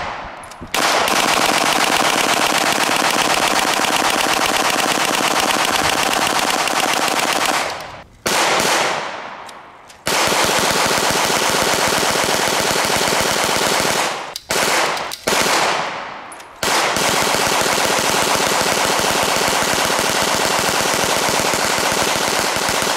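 Hand-cranked Tippmann Armory 9mm Gatling gun firing long strings of rapid shots. The fire breaks off briefly about 8, 10, 14, 15 and 16 seconds in before running on.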